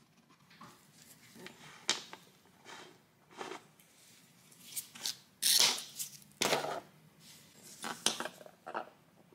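Metal hand tools being handled and set down on a laminate floor: a string of clicks and knocks with short scrapes, the loudest two scrapes about five and a half and six and a half seconds in.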